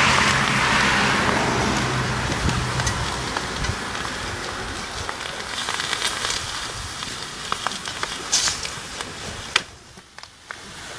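Hot raku-fired ceramic piece hissing in smoke and steam, loudest at first and dying away over a few seconds, with a low hum under it at the start. Then scattered sharp ticks and pops: the glaze crackling as the piece cools.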